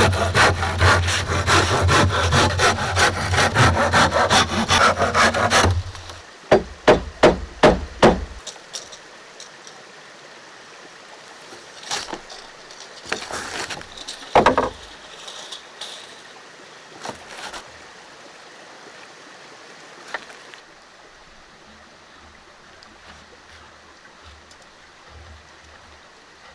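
Hand saw cutting through a wooden board in fast, steady strokes for about six seconds, then five hammer blows driving a nail into the wooden deck planks. After that come a few scattered lighter knocks and taps.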